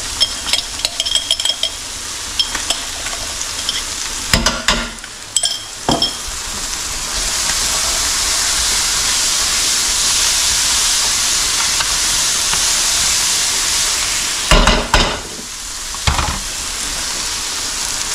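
Vegetables sizzling in a hot stainless steel pan on a gas burner while being stir-fried with metal utensils that clink and scrape against the pan, with a few sharp knocks. The sizzle grows louder for several seconds in the middle.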